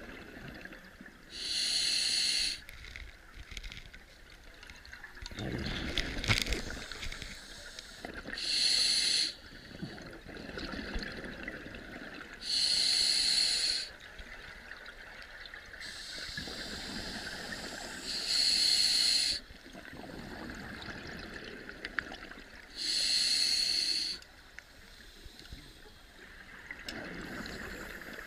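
Scuba diver breathing through a regulator underwater: five loud hissing breaths about every five seconds, with bubbling exhalations between them.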